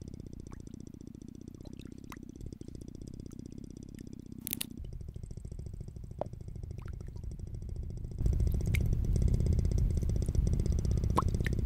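A low, rapidly pulsing rumble with scattered small clicks and a short hiss about four and a half seconds in; the rumble gets clearly louder about eight seconds in.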